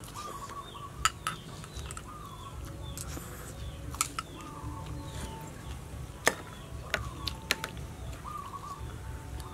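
Metal spoon clinking against a small glass bowl now and then, about five sharp clinks, while someone eats.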